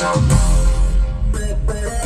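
Loud music with guitar-like plucked notes over a heavy, steady bass.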